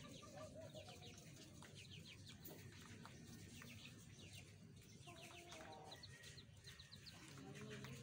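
Hens clucking faintly, a low wavering murmur a few times, among clusters of quick, high chirps.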